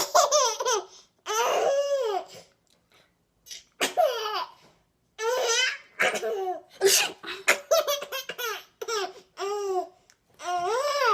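A baby girl laughing hard at pretend sneezing, in about nine high-pitched bursts of giggles separated by short breaths.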